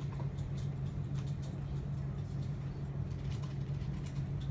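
A steady low hum, with faint, irregular light ticks of fingertips pressing and smoothing a film screen protector on a phone.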